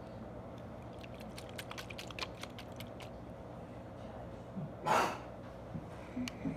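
Quick run of small plastic clicks as the cap of a dot-paint marker bottle is twisted, then a short sharp sniff about five seconds in, over a steady low room hum.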